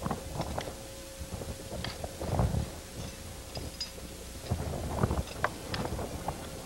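Wind buffeting the microphone, with scattered light knocks and clicks and a faint steady hum underneath.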